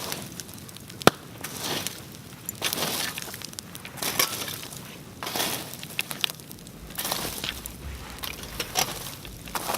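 Wood bonfire crackling: a stream of sharp pops and snaps, one very loud snap about a second in, over a hiss from the flames that swells and fades.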